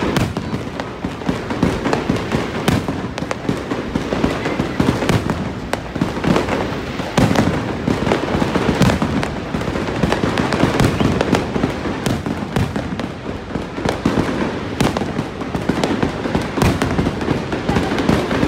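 Aerial firework shells bursting overhead in a continuous barrage, many sharp bangs and pops in quick succession with no real pause.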